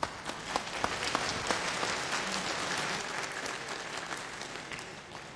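Audience applauding, swelling over the first couple of seconds and then slowly fading away.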